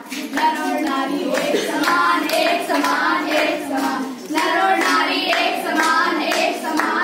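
A group of girls singing a chant together while clapping their hands in time.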